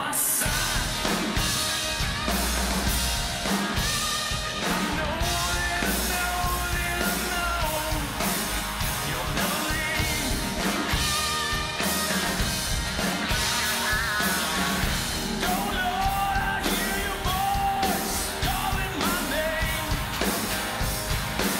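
Live rock band playing a song: a man singing over acoustic guitar, electric bass and drums with a steady beat.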